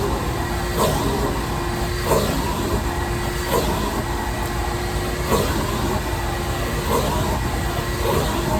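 Shop vac running steadily with a constant motor whine, and a short swish every second or so as the nozzle strokes back and forth across the floor.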